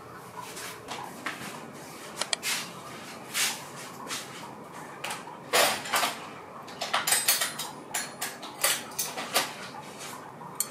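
A ceramic plate and cutlery being set down on a wooden table: a string of irregular short knocks and clinks, busier from about halfway through.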